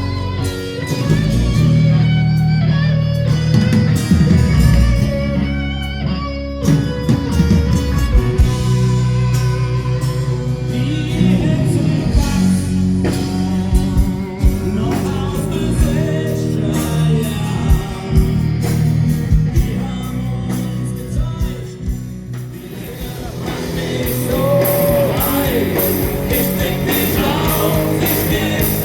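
Live band music: a guitar-led rock song with singing and drums. It eases off briefly a little before the end, then comes back louder with a steady beat of cymbal strokes.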